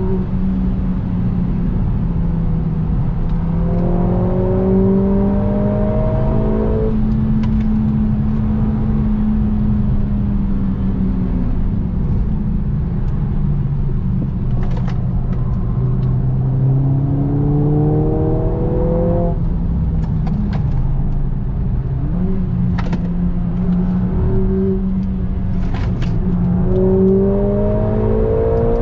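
Mercedes-AMG A45 S's turbocharged 2.0-litre four-cylinder heard from inside the cabin at track speed, easing off and pulling again, its pitch climbing under acceleration three times. There is steady tyre and road noise underneath, with a few faint clicks.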